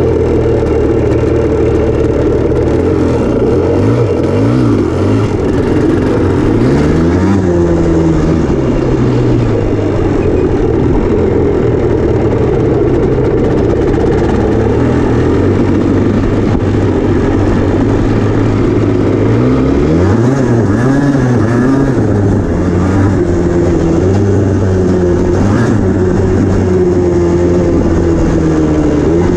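Yamaha Blaster ATV's two-stroke single-cylinder engine running at trail-riding speed, heard close up from the machine itself. Its pitch rises and falls several times as the throttle is opened and closed.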